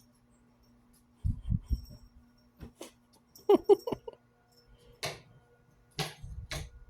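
Kitten playing with fidget spinners: a few soft thumps, a quick run of short chirping mews about halfway through, then a couple of brief scuffing rustles.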